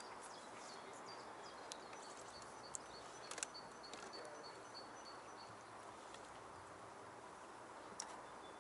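Faint outdoor hiss with small birds chirping in short, repeated high notes, and a few sharp clicks as groundbait is pressed around a method feeder in a plastic mould.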